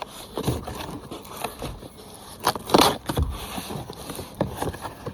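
Cardboard box scraping and rustling as a packed chainsaw is worked out of it, with scattered knocks and one loud thump nearly three seconds in.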